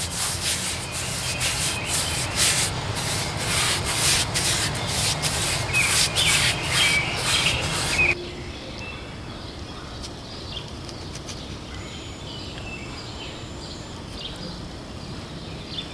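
Paintbrush scrubbing waterproofing paint onto the rough concrete of a fountain bowl, a quick run of rasping strokes. About halfway through it cuts off abruptly to quiet outdoor background with faint bird and insect chirps.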